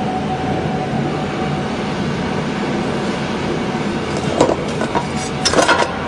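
Automatic cable cutting and stripping machine running with a steady motor hum and whine. A clattering knock comes about four and a half seconds in, and a short run of clattering knocks follows near the end.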